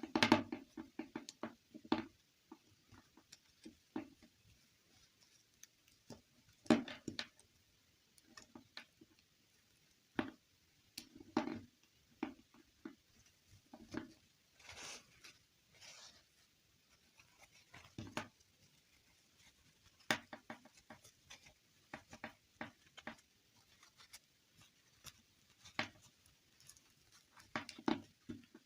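Hands handling small plastic toys: irregular taps, clicks and short rustles, a few of them louder.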